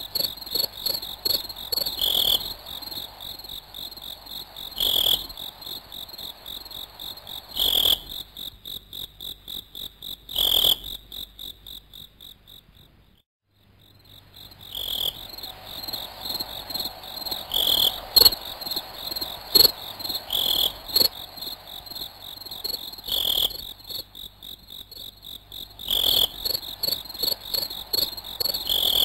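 Crickets chirping, a steady high pulsing trill with a louder chirp about every two to three seconds; the sound drops out briefly about halfway through.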